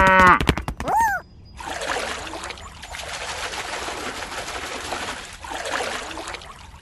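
A cow's moo ends about half a second in, followed by a short call that rises and falls in pitch. Then water trickles and pours steadily, swelling now and then, for the rest of the time.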